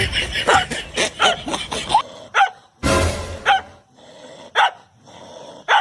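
A dog barking again and again. After a busy first two seconds, single barks come about once a second, with a short rush of noise just before the second of them.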